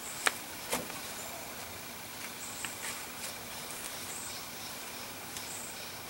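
Outdoor nature ambience: a steady hiss with a short, high buzzing call every couple of seconds. Two sharp clicks, the loudest sounds, come in the first second, followed by a few fainter ticks.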